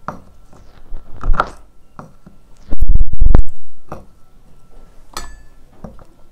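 Kitchen knife slicing shallots on a wooden cutting board, a few separate knife strikes. About three seconds in, a loud heavy thump lasting under a second is the loudest sound.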